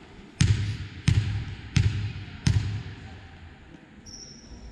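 A basketball being dribbled on a hard gym floor: four sharp bounces at an even pace, about 0.7 s apart, each echoing briefly in the hall.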